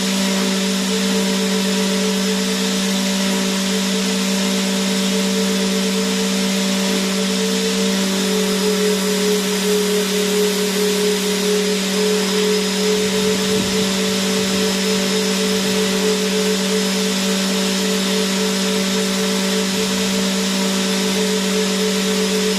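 Vacuum cleaner motor running continuously: a steady, unchanging hiss with a constant hum.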